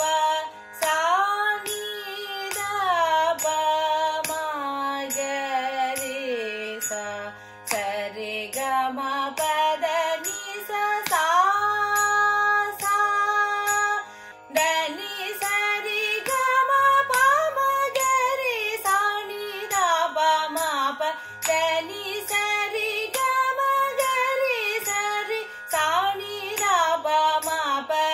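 A woman's voice sings a Carnatic higher-octave exercise (melsthayi varisai) in sargam syllables, with sliding, ornamented notes and short breaks for breath, over a steady drone.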